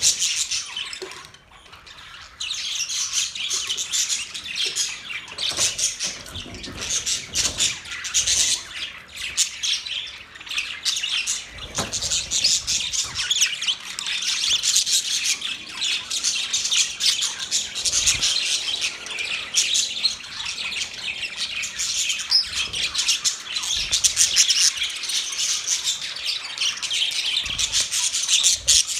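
Budgerigars chirping and chattering in a dense, rapid, continuous stream of high chirps and squawks, with a brief lull about a second in.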